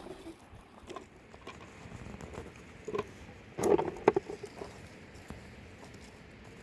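A few scattered light knocks and rustles, with a louder cluster of them about halfway through.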